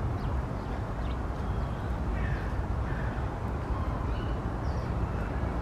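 A few faint, short, harsh calls of a kea, a New Zealand mountain parrot, over a steady low rumble of background noise.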